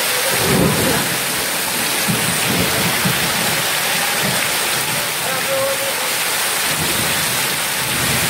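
Torrent of floodwater rushing down a street in heavy rain: a loud, steady hiss of water, with low rumbles about half a second in, again around two to three seconds, and near seven seconds.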